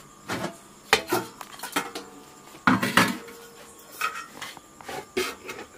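Metal cooking pots, a kadai and a metal ladle knocking and clinking together in an irregular run of about ten knocks, some leaving a short metallic ring.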